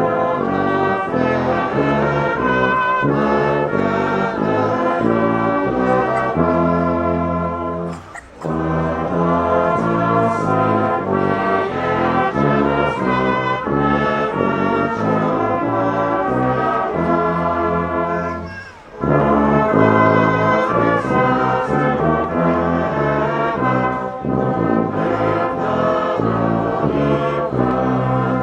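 Brass band playing a Christmas carol in phrases, with two short breaks about 8 and 19 seconds in.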